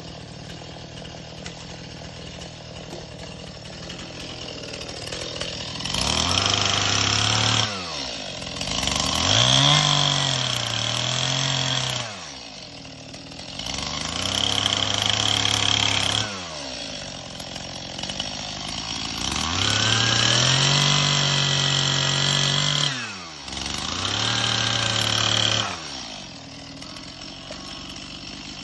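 Petrol chainsaw idling, then revved up five times, each burst lasting a few seconds before the engine drops back to idle. During the longest bursts the pitch sags and recovers.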